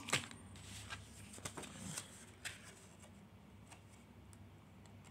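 Faint handling sounds: a sharp click at the start, then a few scattered short rustles and clicks over quiet room tone.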